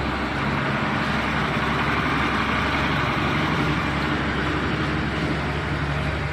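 A heavy engine idling steadily, with a low hum under a broad hiss.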